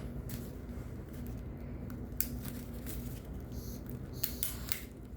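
Handheld torch flame burning steadily as it is passed over wet acrylic paint to pop bubbles, with a few small clicks and taps.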